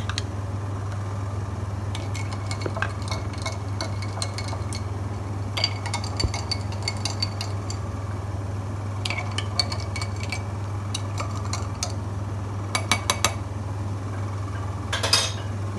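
A spoon stirring iced sharbat in drinking glasses, with spoon and ice cubes clinking against the glass in several short bursts.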